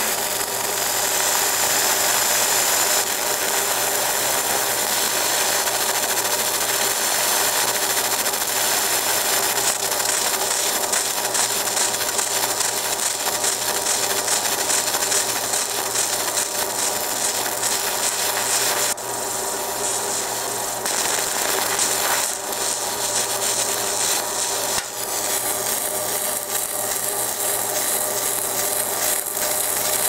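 Fiber laser engraving machine deep-engraving a metal buckle: a steady buzzing hiss over a low hum, its texture changing a few times as the engraving goes on.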